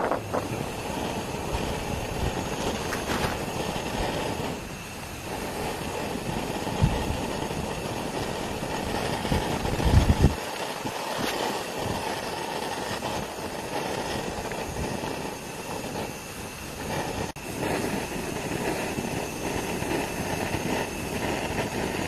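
Portable gas-canister camping stove burning under a small pot of water and vegetables: a steady rushing hiss, with a couple of brief louder bumps near the middle.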